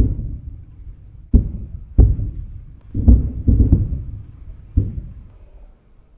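A series of deep, heavy thuds at irregular intervals, about seven in all, each hitting sharply and dying away over about a second.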